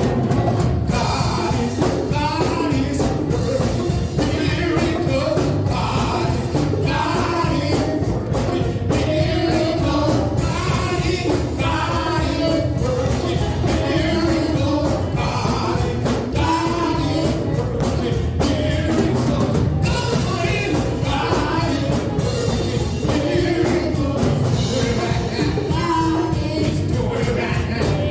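Gospel worship song: singers over a full band with a steady drum beat.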